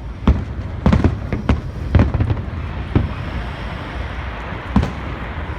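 Aerial fireworks bursting: a rapid, irregular series of sharp bangs, about ten in a few seconds, over a continuous low rumble and crackle, with fewer bangs near the end.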